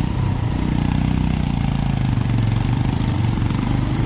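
Single-cylinder motorcycle engine running steadily at low revs.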